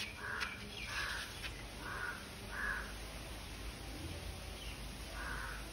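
A crow cawing: a series of short, harsh caws, four in quick succession over the first three seconds and another about five seconds in.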